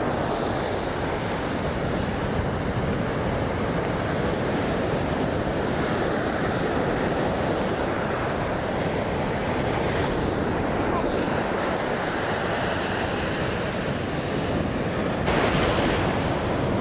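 Ocean surf breaking and washing up a sandy beach, a steady rush of noise that grows louder near the end.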